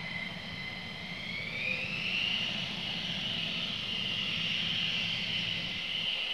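Twin F100 turbofan engines of a taxiing F-15E Strike Eagle, whining over a low rumble; the whine rises in pitch about a second and a half in, then holds steady.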